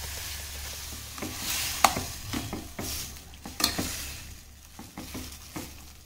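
Steel spoon stirring cooked moong dal in a stainless steel pan of hot ghee, with irregular clinks and scrapes against the pan, the sharpest about two seconds in and again about three and a half seconds in. Ghee sizzles at first and fades.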